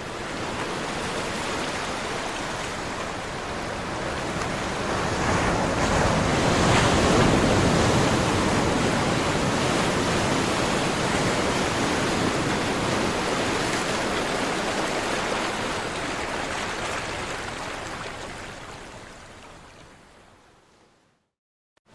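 Caribbean sea surf: the noisy wash of waves on the shore, swelling to its loudest about a third of the way in, then slowly fading out to silence near the end.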